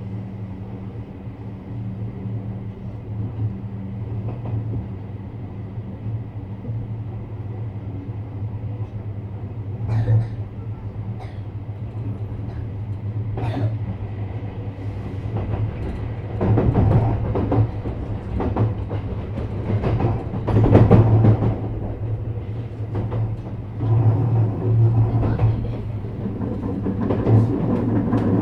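Stationary 321-series electric train hums steadily from its onboard equipment, with a faint high whine running through. From about ten seconds in there are scattered clanks, and then louder rumbling comes and goes in surges, the sound of rail movement around the standing train.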